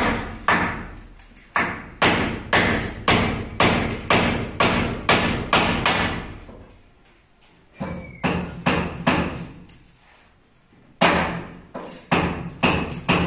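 Hammer driving nails into timber ceiling brandering battens overhead. The sharp blows come about two a second, stop for a couple of seconds twice, and pick up again in a quicker run near the end.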